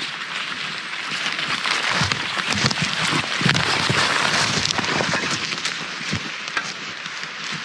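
Footsteps crunching through leaf litter and brushing through undergrowth as two people walk past. Heavy footfalls and rustling are loudest three to four seconds in, as one walker passes close.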